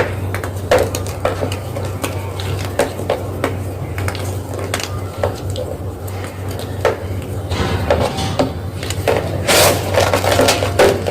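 Soft gym chalk being crushed and crumbled, a run of irregular crunches that grow louder and longer near the end, over a steady low hum.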